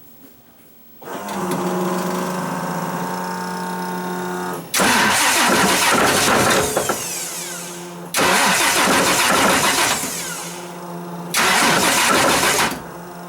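Car engine starting about a second in and idling, then revved three times with a clunk-a-clunk knock, cutting off just before the end. The owner takes the knock for a bad connecting rod, a fault in the rotating assembly.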